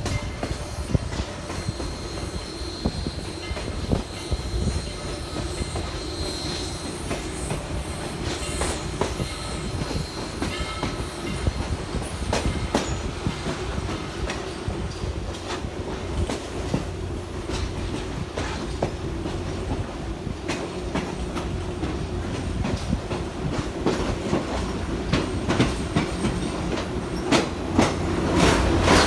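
Train rolling along jointed track, its wheels clicking over the rail joints over a steady low rumble. A faint high wheel squeal runs through roughly the first third.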